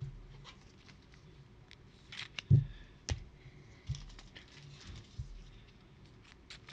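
Trading cards and packs being handled on a table: scattered clicks and light taps with brief rustles, and a few dull knocks, the loudest about two and a half seconds in.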